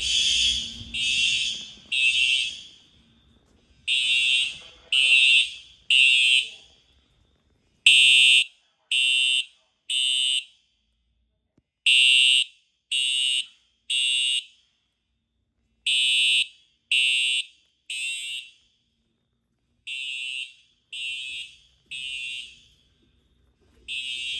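Fire alarm horns sounding the temporal-3 evacuation signal: three half-second high-pitched blasts, a short pause, then three more, repeating about every four seconds. Some groups of blasts are louder than others.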